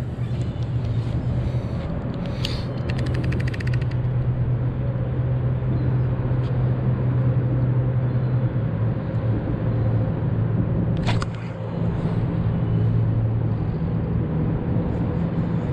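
Steady low engine hum and rumble, with a brief run of rapid clicks a few seconds in and a single sharp click about eleven seconds in.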